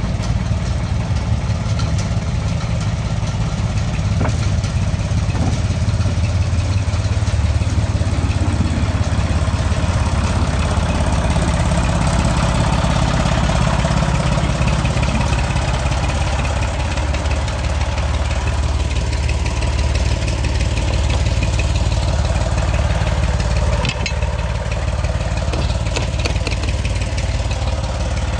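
Engine of a small narrow-gauge diesel locomotive running steadily, heard close to its engine casing: a constant low rumble.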